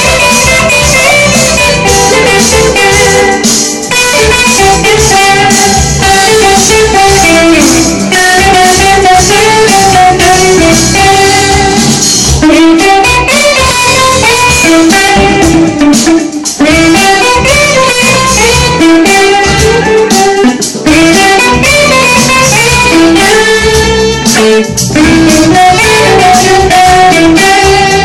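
Two electric guitars played together through amplifiers, a continuous melodic duet of interweaving lead lines.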